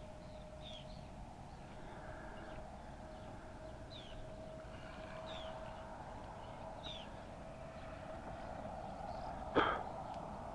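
Birds chirping, short falling notes repeated every second or so, over a faint steady hum. A single sharp knock near the end.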